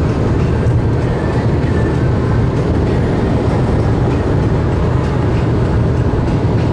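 Steady rumble of a Ford C-Max with a 2.0 TDCi diesel cruising at motorway speed, heard inside the cabin: tyre and road noise with the engine's low drone, even throughout.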